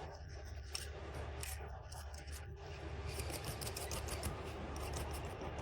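Faint scraping and scratching as leftover underfill glue is cleaned off a smartphone CPU chip, in many small irregular strokes over a steady low hum.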